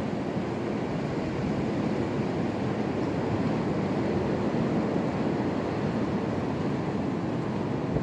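Damaging wind gusting past 60 mph, blowing hard and without a break through bare trees: a steady, deep rush that sounds like a constant freight train.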